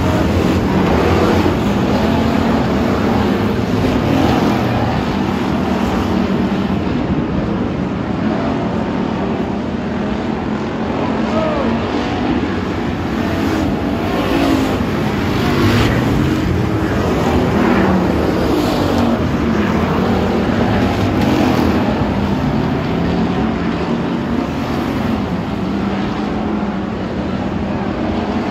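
A pack of hobby stock race cars running on a dirt oval, their engines loud and revving up and down over and over as they go through the turns and down the straights.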